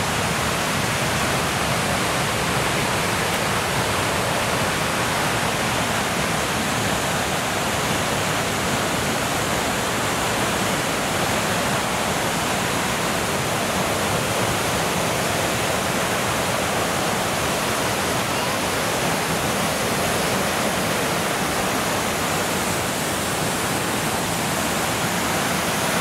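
Little Manitou Falls, a 30-foot waterfall on the Black River, pouring steadily: a loud, even rush of falling water with no breaks.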